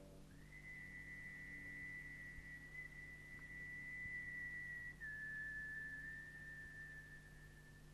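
A single high, pure held note in quiet contemporary classical music. It slides up into pitch just after the start, holds, then steps down slightly about five seconds in and holds again.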